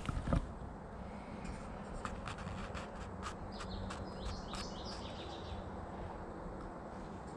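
Swamp ambience: short bird chirps and sharp clicks for a few seconds over a steady low rumble, with a couple of knocks right at the start.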